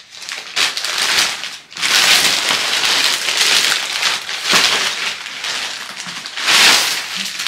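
White plastic poly mailer bag being torn open and crumpled by hand: a run of crackly rustling and ripping, loudest about two seconds in and again near the end.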